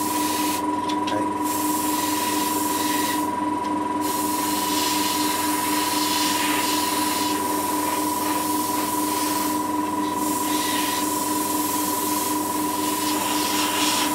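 Airbrush spraying model paint, a steady air hiss in long spurts as the trigger is held, with short breaks about one second, three and a half seconds and ten seconds in. A steady machine hum runs underneath.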